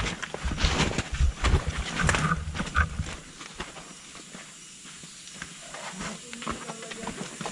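Thumps, scuffs and rustling of people stepping down a steep muddy jungle path, loud for the first three seconds and then dying down to faint scattered rustles.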